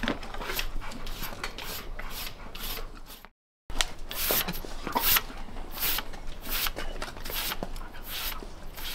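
Metal curry comb scraping over a muddy horse's coat in quick repeated rasping strokes, about two or three a second. The sound cuts out completely for a moment a little over three seconds in.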